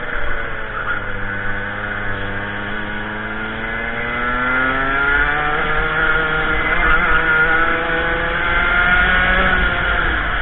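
Racing kart engine heard from the kart itself, easing off low through a corner and then climbing steadily in revs as it accelerates out. The revs hold high down the straight and dip slightly near the end.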